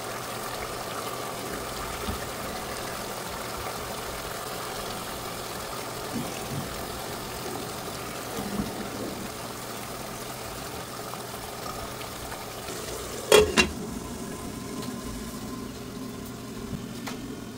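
Lightly fried hilsa fish pieces sizzling as they cook down in a pot of thick spice paste with yogurt. There is a steady sizzle, with a few small clicks and one sharp knock about thirteen seconds in.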